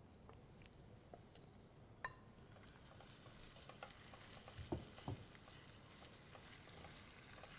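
Marinated chicken pieces frying in hot vegetable oil in a pot: a faint sizzle that builds from about three seconds in, with a few light knocks.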